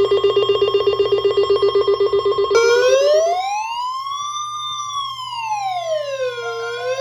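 Electronic alert sounds: a rapidly pulsing, bell-like ringing tone that stops about three seconds in, overlapped by a wailing siren that glides slowly up and then down over about four seconds before rising again. A steady tone runs underneath, and short repeated beeps start near the end.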